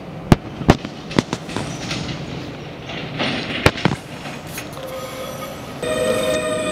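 Heritage electric tram running on a tight loop of track: several sharp clicks, then about five seconds in a steady high wheel squeal with several tones sets in and grows louder.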